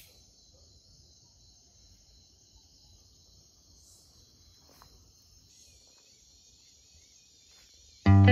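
Faint, steady chorus of night insects in tropical rainforest, an even high hiss. Loud guitar music cuts in just before the end.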